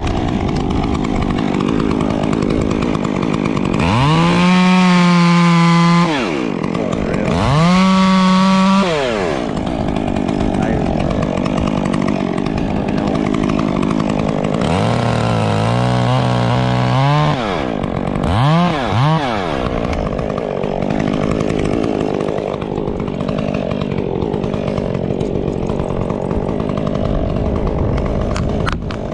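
Two-stroke top-handle chainsaw idling, its engine revved up to high speed and held for about two seconds twice. Midway it climbs in pitch through a longer rev, then gives two quick throttle blips and drops back to idle.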